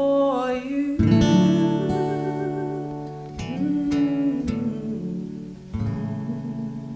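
The end of a live acoustic song: a woman's last sung note fades about a second in, then an acoustic guitar strums three closing chords a couple of seconds apart, each left ringing and dying away.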